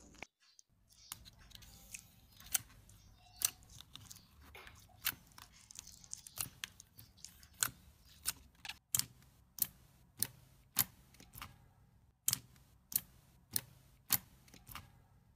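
Water-filled balloon stress balls squeezed and handled by hand: a run of short, sharp clicks from the rubber and fingers, irregular, about one or two a second.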